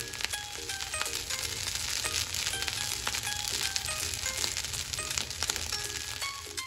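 Spiced rice sizzling and crackling in a hot frying pan as it is stirred through with fresh coriander leaves. Light plucked background music plays over it.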